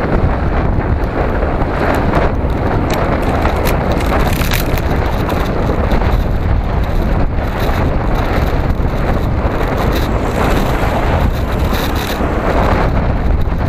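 Steady wind rumble on the microphone of a camera moving along a road, with road noise under it; a car overtakes near the end.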